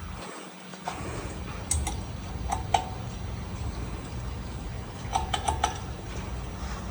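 Harbor Breeze Altissa 52-inch ceiling fan running with a steady low hum, with a few light metallic clicks and clinks: one about two seconds in and a quick cluster a little past five seconds.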